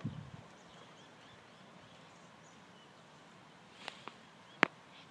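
Quiet ambience with faint bird chirps. Two sharp clicks come about four seconds in, a little under a second apart, and the second is louder.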